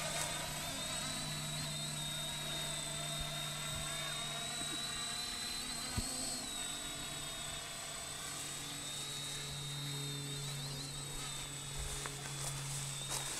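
Quadcopter drone buzzing in flight, its high propeller whine wavering up and down in pitch as it manoeuvres.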